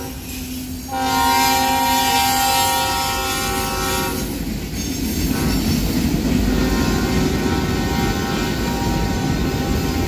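Union Pacific freight locomotive's air horn: a brief break, then a long blast that fades out about four seconds in as the locomotives move on. After that comes the steady rolling and clatter of freight cars passing on the rails.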